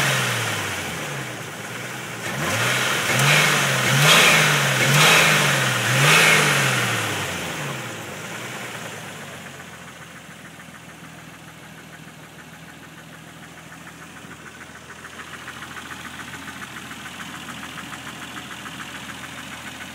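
Nissan Skyline engine blipped several times in quick succession, each rev rising and falling about a second apart, then settling to a steady idle. A rapid, even pulse grows slightly louder at idle near the end.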